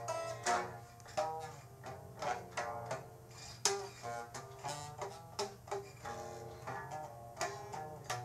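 Music on a plucked string instrument: single notes picked one after another, each ringing and fading, over a steady low tone.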